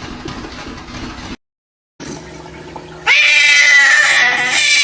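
A cat's long, loud meowing cry that begins about three seconds in and is held for nearly two seconds, after a stretch of noisy background and a brief silent gap.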